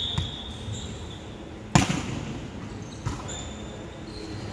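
Volleyball play on a hard indoor court: a high sneaker squeak fading out at the start, then a single sharp slap of a hand hitting the volleyball a little under two seconds in, the loudest sound, followed about a second later by a softer hit and brief squeaks.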